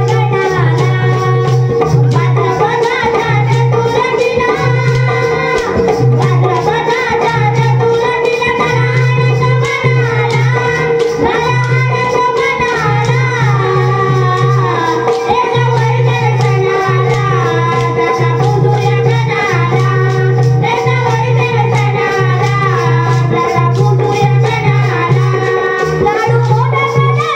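Music with a sung melody over rattling percussion and a steady, evenly pulsing bass line.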